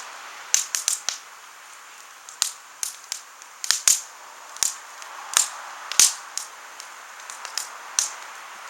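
Wood fire crackling: irregular sharp pops, a dozen or more, over a steady hiss.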